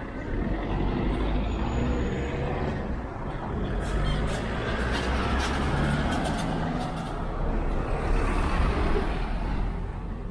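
A heavy road vehicle's engine running close by with a deep rumble, swelling about a second in and easing off near the end. A few short, sharp sounds come near the middle.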